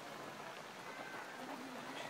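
Footsteps of a large pack of runners jogging past on a dirt path, a steady shuffle of many feet, with faint voices of spectators behind.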